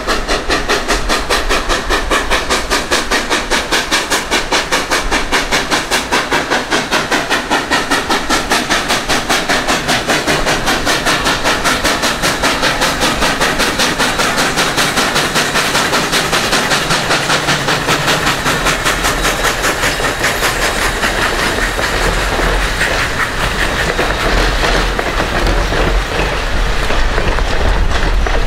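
Canadian National Mikado (2-8-2) steam locomotive No. 3254 working hard as it passes, its exhaust chuffing in a quick, even beat. In the second half the chuffing fades and the passenger coaches roll by with a steady rumble of wheels on rail.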